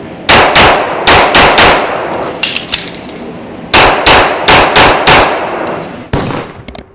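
Handgun fired rapidly on an indoor range: about a dozen sharp shots in quick pairs and triplets, with a pause of about a second and a half in the middle, each shot ringing briefly off the walls.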